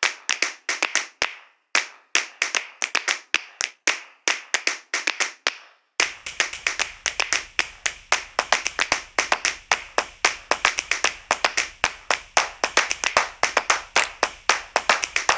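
Background music made of rhythmic handclap-like percussion, about five sharp claps a second, with short breaks after about a second and a half and again around five and a half seconds. From about six seconds in, a faint low beat joins underneath.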